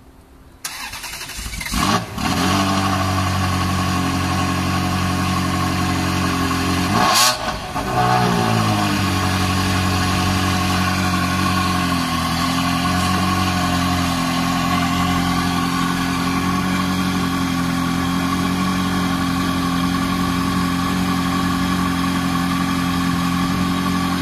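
Ferrari 360 Modena Spider's 3.6-litre V8 cranking and catching about two seconds in, then idling high. A single short blip of the throttle, rising and falling, comes about seven seconds in. The idle drops slightly lower about twelve seconds in and runs steady.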